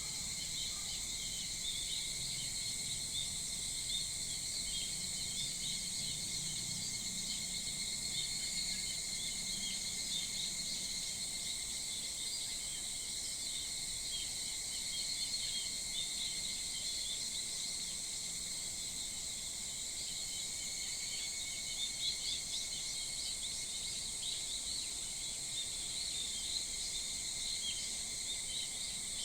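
Early-morning summer insect chorus, a steady high drone in several layers, with scattered short bird chirps over it.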